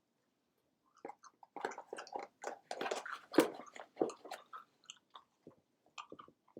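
A person chewing and biting close to the microphone: irregular, crunchy mouth sounds that start about a second in.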